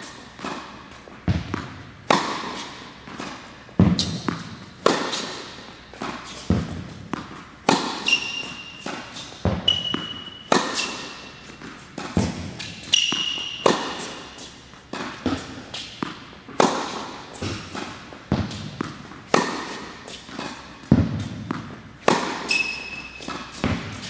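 Tennis racket striking the ball and the ball bouncing on an indoor hard court, sharp impacts about once a second, echoing in a large hall. A few short high squeaks, from rubber tennis shoes skidding on the court surface, come in between the hits.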